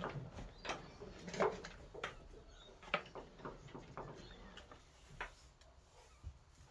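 A string of light clicks and knocks, about eight spread irregularly over several seconds, as a leather strop is hung by its cord on a metal wall hook and handled.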